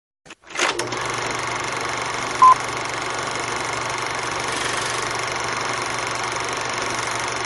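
Steady static hiss with a low hum, starting just after a click, with one short high beep about two and a half seconds in.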